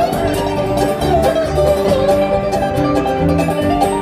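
Bluegrass band playing live: banjo, acoustic guitar, upright bass, fiddle and lap-played guitar, with some notes sliding in pitch over a steady bass pulse.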